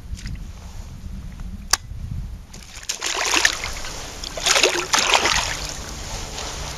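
Water splashing as a black bass thrashes at the surface right beside a kayak, in bursts from about three seconds in. A single sharp tick comes a little before the splashing starts.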